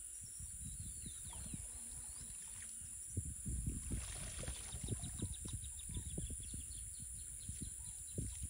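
Water splashing and dripping off a cast net as it is hauled up out of shallow creek water, heaviest about four seconds in. Birds chirp and twitter faintly in the background over a low, uneven rumble.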